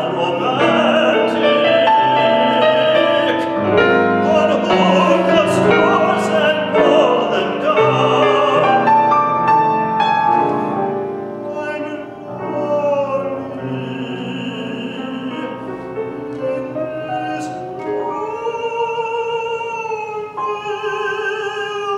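Operatic tenor singing with piano accompaniment. About halfway through, the music thins out and gets quieter, and near the end the voice holds a long note with vibrato.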